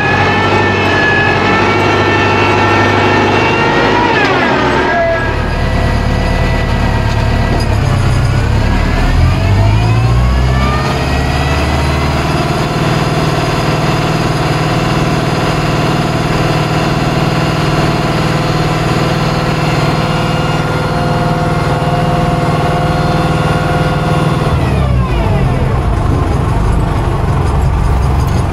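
Tractor engine running under load, driving a Siloking feed mixer wagon as it unloads feed. The revs drop, then climb and hold steady while the wagon unloads, and drop again near the end.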